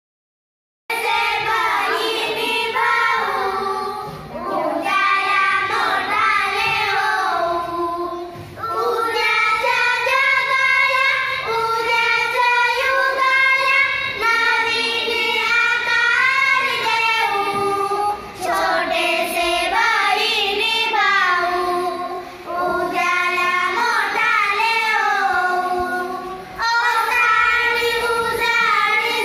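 A small group of young girls singing a Marathi poem together, in phrases with short breaks between them; the singing starts about a second in.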